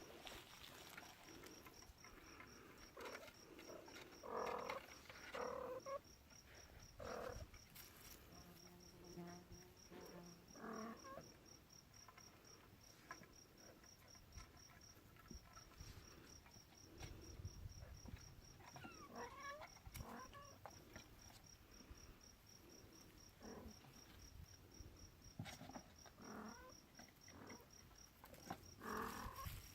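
Kittens making faint, scattered soft mews and rustling movements over a steady, fast, high-pitched pulsing chirp that repeats several times a second.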